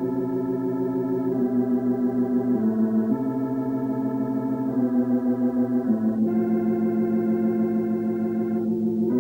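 Organ accompaniment music playing held chords that change every second or so, with a fast, even wavering.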